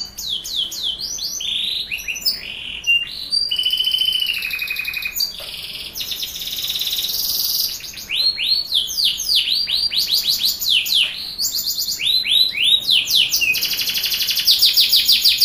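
Domestic canary singing a long, unbroken song of fast trills, runs of quick downward-sweeping whistles and short held notes.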